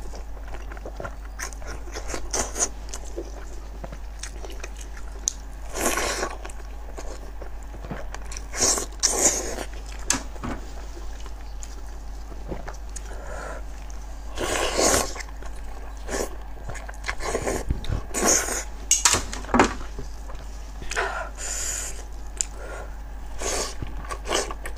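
Close-miked eating sounds of a person biting and chewing cooked sheep's-head meat, with wet smacking and tearing in irregular bursts a few seconds apart.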